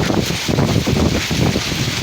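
Strong wind buffeting the microphone in a heavy rainstorm, gusting and rumbling over a steady hiss.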